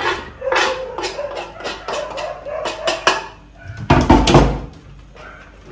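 Grated carrot being scraped by hand off a wooden board into a plastic bowl: a run of quick scrapes and taps for about three seconds, then a heavy thump about four seconds in.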